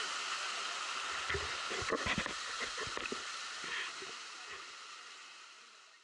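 Waterfall rushing: a steady roar of falling water, with a few indistinct voices over it in the middle. It fades away over the last two seconds.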